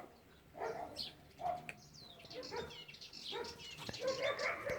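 Kittens mewing: several faint, short, high-pitched calls, spaced out at first and coming closer together near the end.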